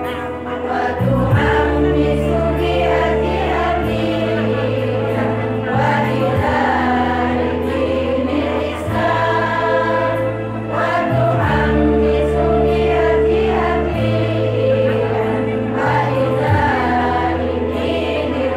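Women's choir singing together over an accompaniment of held low chords that change every two seconds or so.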